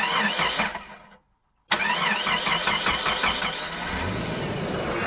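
Car sound effect: a loud, rapidly warbling pitched sound that fades out about a second in and starts again after a short silence, turning hissier near the end.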